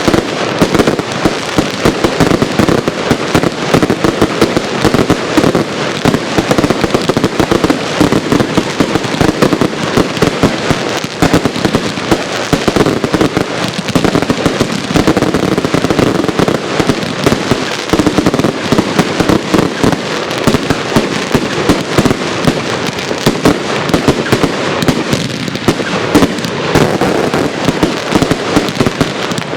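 Firework cakes firing a dense, continuous barrage of rapid cracks and bangs.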